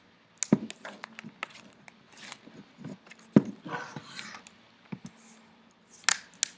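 Plastic laptop screen bezel being pressed on by hand: sharp clicks as its clips snap into place, with handling scrapes in between. The loudest snap comes about halfway through, and two more come close together near the end.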